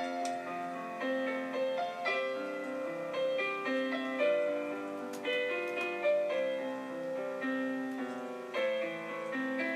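Background piano music: a gentle melody of sustained notes over slow chords.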